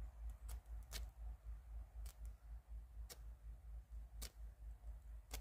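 Knife cutting into a large plush toy's fabric and seams, heard as sharp clicks about once a second over a low rumble.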